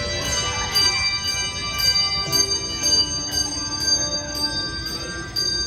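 A handbell choir playing a piece of music, with chords of bells struck about once a second, each ringing on under the next.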